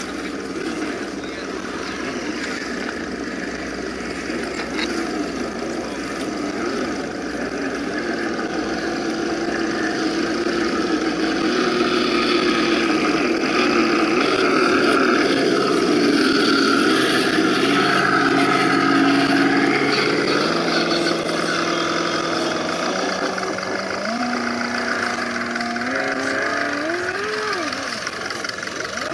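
Electric motors and gearboxes of several scale RC crawler trucks whining as they crawl over loose dirt, the pitch rising and falling with the throttle.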